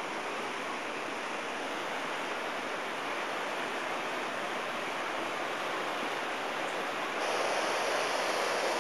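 Steady rushing of ocean surf on a lava-rock shoreline, heard as an even wash of noise; about seven seconds in it becomes louder and fuller.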